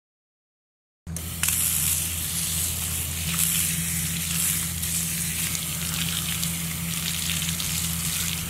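Water pouring from an outdoor wall tap and splashing on bare skin and wet concrete: a steady hiss with a low hum beneath it, starting suddenly about a second in.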